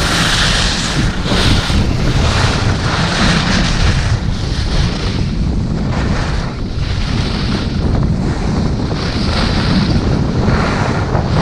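Wind rushing over the microphone of a camera moving fast down a ski slope: a steady low rumble with hiss that swells and fades every second or so.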